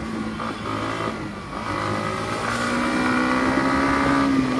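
Yamaha MT-15's single-cylinder engine running while riding, its pitch climbing slowly through the second half as the bike gently speeds up.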